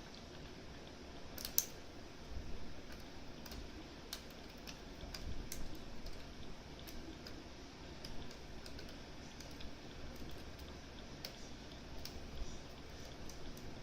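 Scattered, irregular faint metallic clicks and ticks of a pick and tension wrench working the discs of a Mosler M5700 safe deposit box lock, the strongest about one and a half seconds in.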